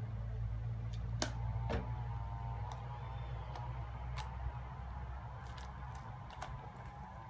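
Hands squeezing and kneading purple glue slime just dosed with borax, giving scattered sticky clicks and pops over a steady low background hum.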